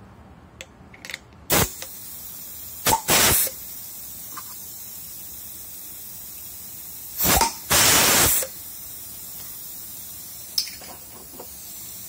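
Pneumatic air crimper on a compressed-air line: a loud blast of air about a second and a half in, then two crimping strokes, each a short puff followed by a longer whoosh of air as the tool fires and exhausts. A steady faint air hiss runs between the strokes.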